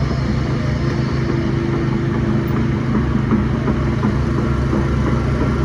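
Heavy diesel engine of construction machinery running steadily at a constant speed.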